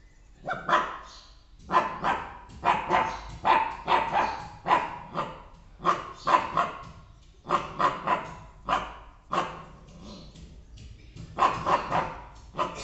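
Bhotia puppy barking in quick runs of short barks, with a brief pause before a last burst near the end: alert barking while guarding the home gate.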